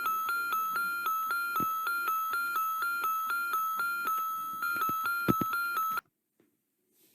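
Custom-made emergency alert alarm: a synthesized electronic tone pattern of rapid, evenly repeating beeps over a steady high note, pulsing about three times a second, that cuts off suddenly about six seconds in.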